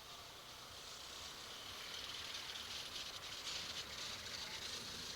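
Steady hiss of wind and road noise picked up by a helmet intercom microphone on a moving motorcycle, over a faint low rumble; the hiss grows louder about two seconds in.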